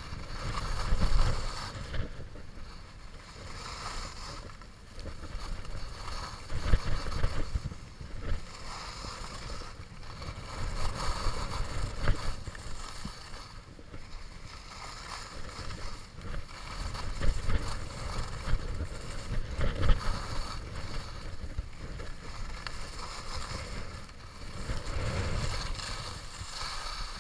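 Skis sliding and carving down a groomed slope, the edges hissing and scraping on the snow, swelling and fading every few seconds through the turns, with wind rumbling on the microphone.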